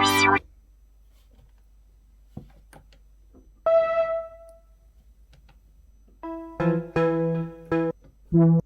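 Behringer DeepMind 12D analog synthesizer: a held patch cuts off just after the start, then after a pause a single note sounds and fades, followed near the end by a run of short, separate notes from a new patch.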